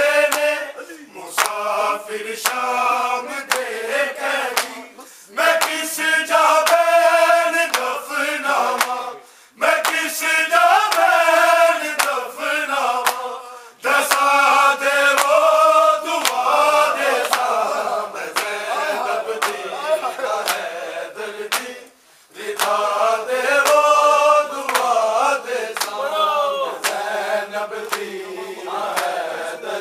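Men's voices chanting a Shia mourning noha together, line by line with brief pauses between lines, over a steady run of sharp slaps from matam chest-beating.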